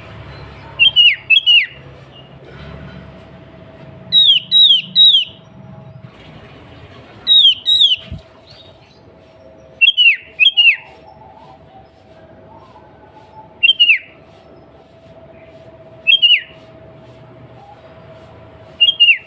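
Sooty-headed bulbul (kutilang) calling: short, loud, downward-sliding whistled notes in groups of one to three, repeated every two to three seconds.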